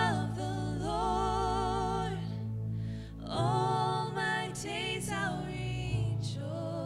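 Live worship band music: sung vocal lines with long held, wavering notes over steady low sustained instrumental notes, easing off briefly about three seconds in.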